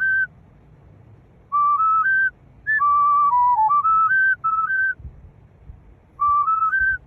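Whistle-like lead melody in a children's song's instrumental break: a simple tune of short, clear single notes in three phrases with pauses between them, the first and last climbing in steps.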